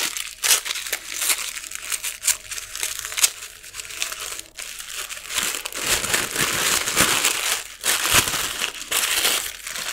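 Tissue paper crinkling and rustling as hands unwrap it from around a small item, with many small crackles, busier and louder in the second half as the paper is pulled open.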